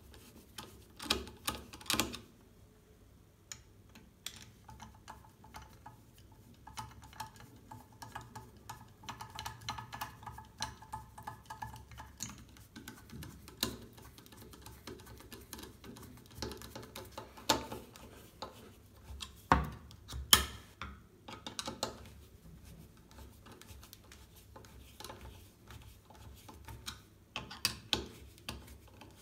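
Screwdriver tightening the fixing screws into the hinge plates of a top-fix toilet seat: scattered small metallic clicks and scrapes as the tip works in the screw heads, with a few louder knocks past the middle.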